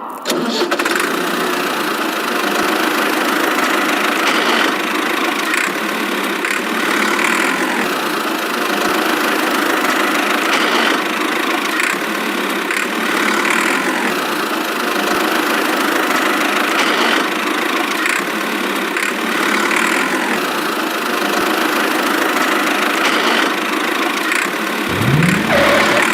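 A small motor running steadily, with a short rising whine about a second before the end.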